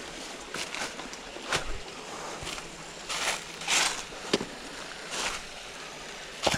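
Water splashing and sloshing in a shallow creek, a string of irregular splashes, some short and a couple longer about three to four seconds in, over the steady run of the stream.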